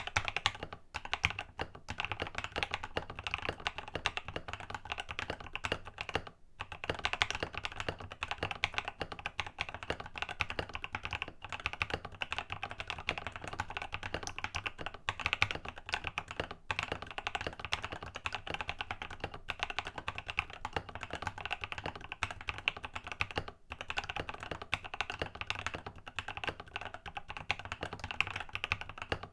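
Rama Works Kara mechanical keyboard with a polycarbonate plate, Creamsicle switches lubed with 205g0 and filmed, and Infinikey Cafe keycaps, being typed on fast and continuously. There are two short pauses, about six seconds in and near the twenty-four-second mark.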